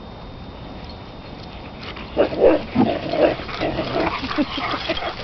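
Puppies making a quick, irregular string of short vocal noises as they play, starting about two seconds in.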